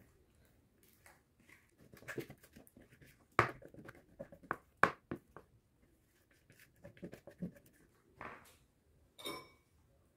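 Spatula scraping thick cake batter out of a plastic bowl into a springform pan: intermittent wet scrapes and plops, with a couple of sharper knocks about three and a half and five seconds in.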